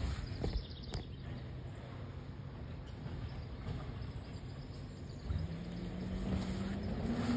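Recycling truck's engine running with a steady low hum. From about five seconds in it revs up, its pitch rising steadily.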